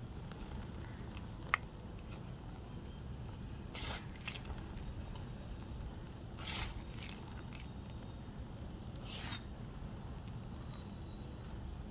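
Gym chalk being crushed: three short crumbly crunches, spaced about two and a half seconds apart, with a single sharp click before them, over a steady low background hum.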